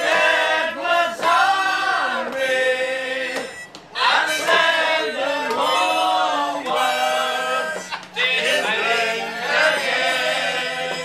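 A busload of passengers, men and women, singing a song together loudly, with a harmonica played along; the phrases break briefly about four and eight seconds in.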